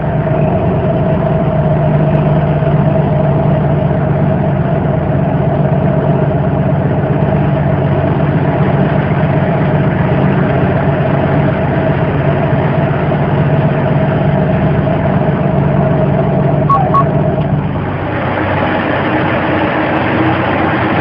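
Semi-truck engine running steadily as the truck drives slowly, heard from inside the cab. The engine note changes about eighteen seconds in.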